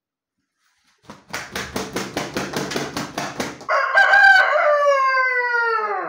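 Aseel rooster beating its wings in a quick run of about ten claps, about four a second, then crowing: one long, loud call that starts about halfway through and falls in pitch toward the end.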